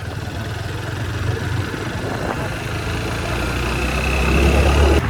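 A vehicle's engine running on the road with a steady low rumble, getting louder in the last second or two.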